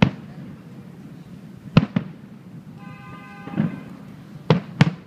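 Aerial fireworks shells bursting: about six sharp bangs at uneven intervals, some close together in pairs, over a low steady background rumble. A short steady tone sounds about three seconds in.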